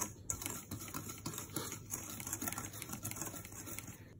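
Wire whisk stirring dry flour and sugar in a metal bowl, its wires ticking against the bowl in a quick, irregular patter.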